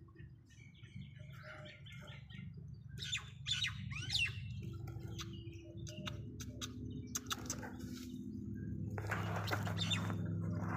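Small birds chirping and calling in short, scattered notes and quick sweeping calls. A low steady hum comes in about halfway through and grows, and a rushing noise swells near the end.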